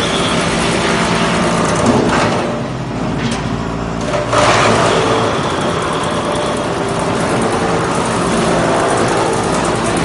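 Large drum wood chipper running with a steady mechanical hum, with a brief surge about two seconds in and a louder rushing surge just after four seconds.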